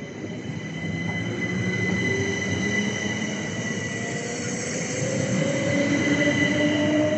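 Class 377 electric multiple unit pulling away and accelerating, its traction motor whine rising steadily in pitch as it gathers speed, over a steady high-pitched tone. The train noise grows louder throughout.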